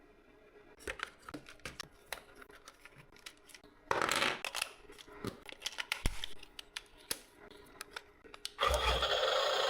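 Model RC excavator at work: scattered small clicks and scraping. A short louder burst of hissing noise comes about four seconds in, and another begins near the end.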